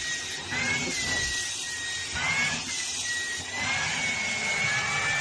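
Small handheld vacuum cleaner running over a cat's fur, its high motor whine wavering up and down in pitch over a steady hiss.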